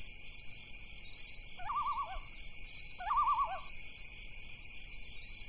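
Night ambience: a steady, high-pitched chorus of night insects, with two short, wavering owl hoots about one and a half and three seconds in.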